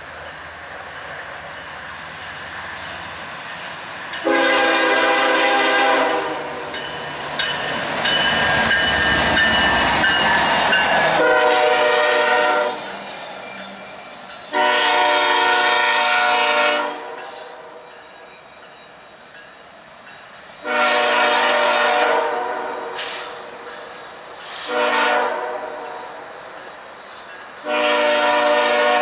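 Nathan K5HL five-chime locomotive horn sounding a series of blasts: long ones, one short one near the end, then a final long one. The last four follow the long-long-short-long grade-crossing signal. In the middle the locomotives pass close by with a heavy diesel rumble, and the horn pitch drops as they go by (Doppler effect).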